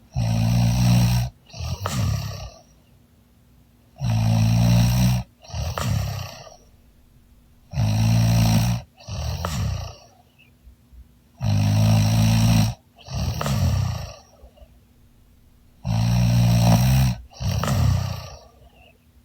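A woman snoring heavily in deep sleep: five breaths about four seconds apart, each a long, low snore followed by a shorter second one.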